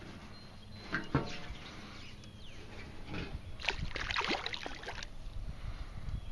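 A hooked largemouth bass thrashing and splashing at the water's surface as it is reeled in toward the bank. The loudest run of splashing comes a little past halfway.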